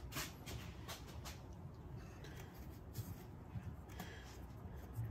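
Faint scattered clicks and light handling noise from a gloved hand working among parts in a car's engine bay, over a low steady background hum.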